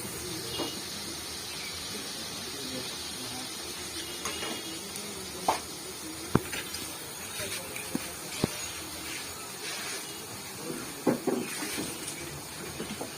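Steady hiss of jilapi batter frying in hot oil, with scattered clinks and knocks of utensils against metal.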